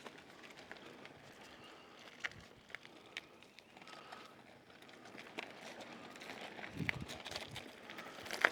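Faint, scattered clicks and knocks from a newly assembled bike trailer being tried out, with wind noise building toward the end.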